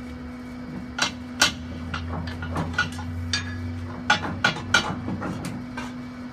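A series of sharp metal clanks and knocks as a bent length of square steel hollow section is worked free of a hydraulic tube bender's former and clamping die, over a steady hum.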